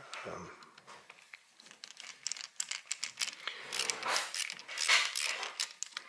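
Screwdriver scraping and clicking on the brass terminal screws of an old two-prong outlet as they are loosened to free the wires, with the stiff wires rustling. A run of small irregular clicks and scrapes, busiest about four to five seconds in.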